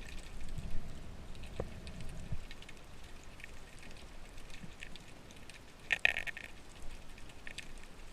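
Underwater ambience: a steady scatter of faint clicks and crackle, with a low rumble early on, one sharp click and a brief louder crackling burst about six seconds in.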